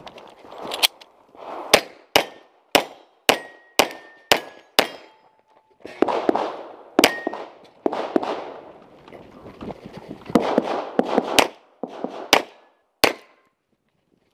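Pistol shots fired in quick strings, about fifteen in all, with steel targets clanging and briefly ringing when hit. Bursts of movement noise fill the gaps between strings.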